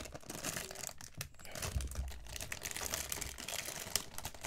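Thin clear plastic bag crinkling and rustling in irregular small crackles as hands peel it off a sealed plastic Poké Ball toy.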